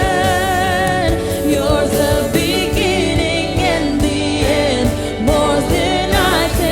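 Worship band music with voices singing held notes with vibrato over a steady drum beat.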